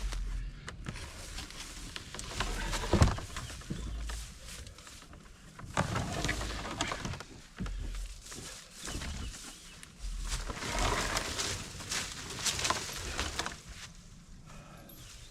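Knocks and scraping as a heavy deer-blind panel is handled and moved by one person, with a sharp knock about three seconds in.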